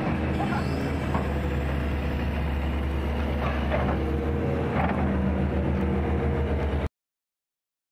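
Caterpillar tracked excavator's diesel engine running steadily at working speed as its boom and bucket move. It cuts off suddenly about seven seconds in.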